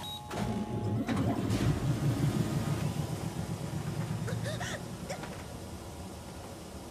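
Car-wash machinery rumbling low, with a fast churning texture as the big rotating brushes spin. It is strongest in the first few seconds and fades gradually. A few short vocal sounds come near the middle.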